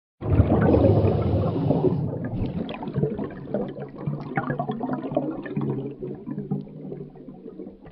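Bubbles underwater: a dense rush of bubbles for the first two seconds or so, then thinning to scattered bubbling pops and gurgles.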